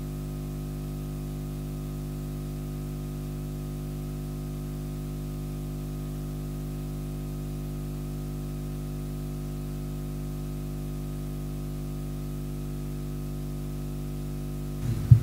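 Steady electrical hum and hiss from the microphone feed, a mains buzz of several even tones with no other sound, then a sharp knock at the very end.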